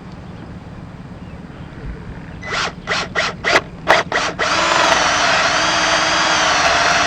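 Power drill with a 27 mm bit boring a hole into PVC pipe: a few short stop-start bursts, then steady continuous drilling from a little past halfway through.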